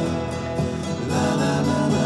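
Background music: an acoustic guitar playing between sung lines of a song.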